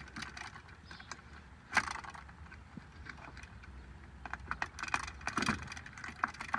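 Light clicks and knocks of parts being handled at a truck's steering column while a new clock spring is fitted, with one sharper knock about two seconds in and a quicker run of clicks near the end.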